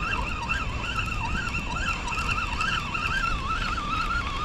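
A spinning reel being cranked to haul in a crab snare against light resistance, its gears giving a whine that wavers up and down in pitch with each turn of the handle, over a low steady rumble.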